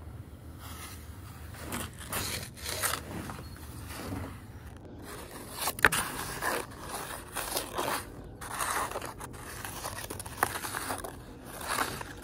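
Snow being scraped and crunched by a hand and a small finger snowboard, in a series of short, irregular scrapes, with one sharp click about six seconds in.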